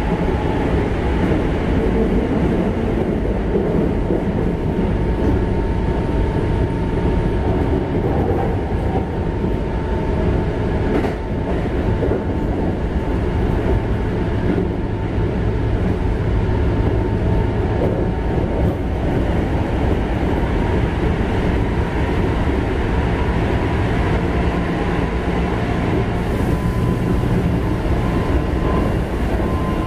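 Keikyu 1500-series electric train (Mitsubishi GTO-VVVF) running along the line, heard inside the passenger car: a steady, loud rumble of wheels on rail and car body noise. A faint steady whine sits over it at the start and comes back near the end.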